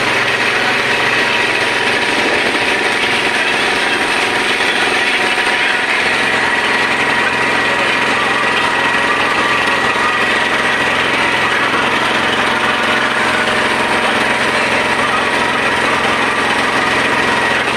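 Boat engine running steadily, heard loud and close from on board the moving boat: an even mechanical drone with a constant level.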